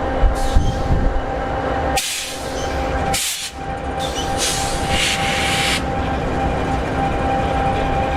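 EMD 16-710G3B two-stroke V16 diesel of an SD60E locomotive idling, a steady low rumble with a constant hum. Between about two and six seconds in, several short bursts of hissing sound over it.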